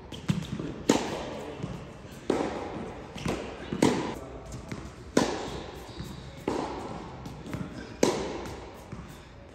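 Tennis ball struck by racket and bouncing on the court during a groundstroke rally: sharp pops about every one to three seconds, each ringing on in the echo of a large indoor hall.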